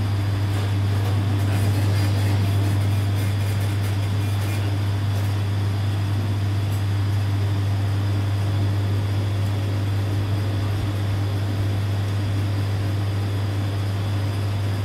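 Steady low machine hum, unchanging, with a few faint light ticks in the first few seconds.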